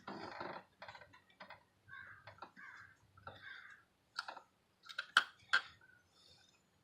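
Irregular light clicks and scrapes of hands working plastic and metal parts in a car's engine bay during ignition coil removal, with two sharper clicks a little after five seconds in.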